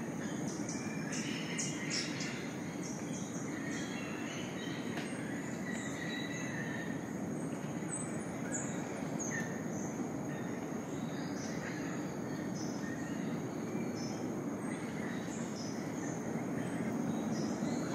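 Rainforest dawn chorus: many short bird calls and chirps scattered through, over a steady high insect drone and a constant low rushing background.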